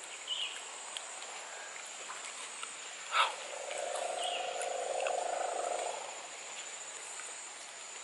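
Forest ambience: a steady high insect drone with a few short bird chirps. A brief sharp sound comes a little over three seconds in, followed by a low hum lasting a couple of seconds.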